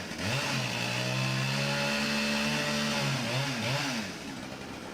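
Chainsaw engine running at steady throttle, its pitch dipping and rising again briefly near the start and again about three and a half seconds in, then getting quieter about four seconds in.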